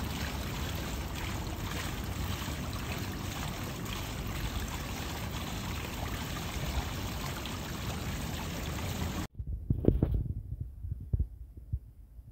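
Steady rushing noise of water in a swimming pool as a small model boat drifts across it. It cuts off suddenly about nine seconds in, leaving quiet with a few short low thumps near the end.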